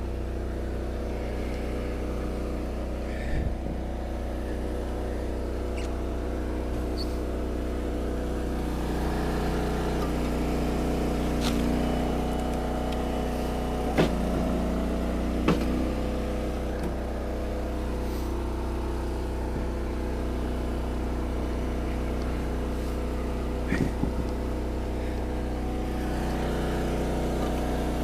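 Engine-driven hydraulic log splitter (Eastonmade 22-28) running steadily while splitting firewood rounds, with a few sharp knocks and cracks scattered through.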